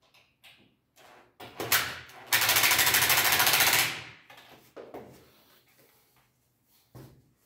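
Cordless drill-driver briefly starting, then running for about a second and a half with a fast rattle as it drives a screw into a corner of an MDF door frame, followed by a few handling knocks.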